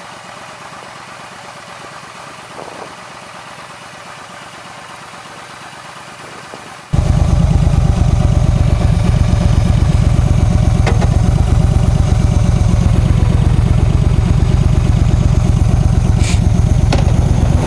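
Yamaha V Star 1300's V-twin engine idling while the bike stands still. The sound steps suddenly from a quieter, even hum to a loud, steady low pulsing about seven seconds in, with a couple of sharp clicks near the end.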